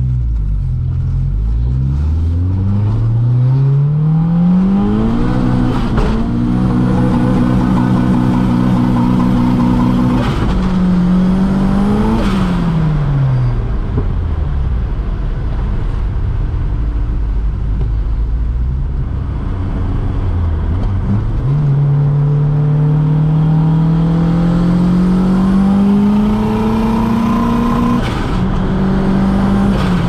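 Turbocharged 1.8T four-cylinder engine in a Mk2 Golf GTI pulling under acceleration, its pitch climbing steadily and then holding. It falls away about halfway through and climbs again in a second pull near the end. A few short sharp sounds come in between.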